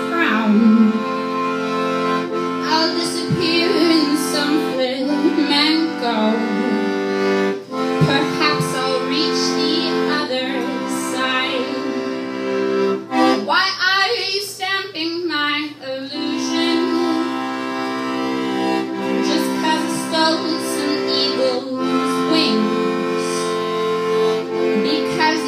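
Piano accordion playing an instrumental passage of sustained chords with a melody over them. About halfway through there is a busier, fluttering stretch before the held chords return.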